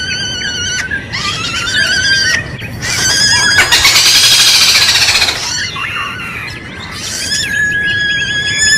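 Kadalan kembang (a malkoha) calling: a run of loud, squealing calls with a wavering pitch, one after another, the last one long and held steady near the end.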